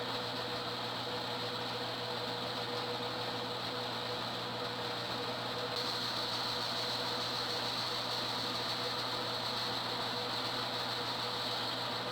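Homemade lathe running steadily with a constant hum while the recess for a ring fitting is cut into a wooden pool cue. A hiss in the sound grows louder about halfway through.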